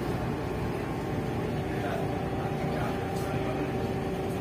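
Steady low drone of the KMP Putri Yasmin ro-ro ferry's engines, with a constant hum, under faint passenger chatter.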